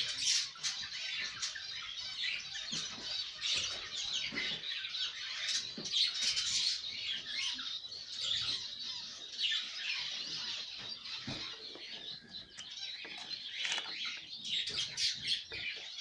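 A flock of pet budgerigars chattering and chirping without pause, with fast high twitters and squawks.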